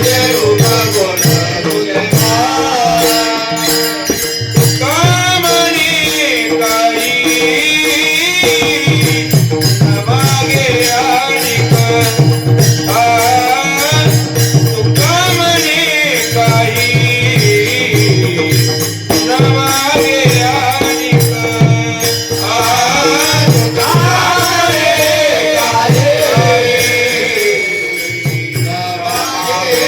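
Traditional Varkari bhajan: a man singing a devotional melody in long, bending phrases over a steady drone, accompanied by rhythmic pakhwaj (mridang) drum strokes and jingling percussion.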